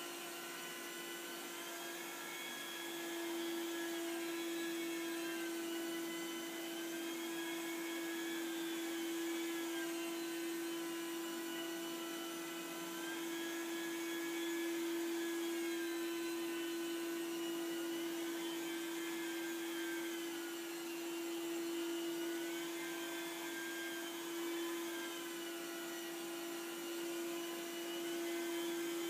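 Rotovac rotary carpet-extraction machine running steadily with its vacuum suction on. It gives a constant hum, with a higher whine that slowly wavers up and down every few seconds.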